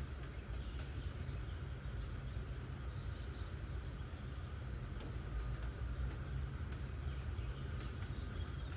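Steady thundershower ambience: an even wash of rain noise over a constant low rumble, with a few faint bird chirps about three seconds in and again near the end.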